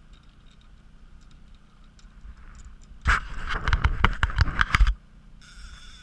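Loud scraping and knocking on the camera for about two seconds, starting about three seconds in, over the faint steady hum of the boat's motor. A high steady whine starts again near the end.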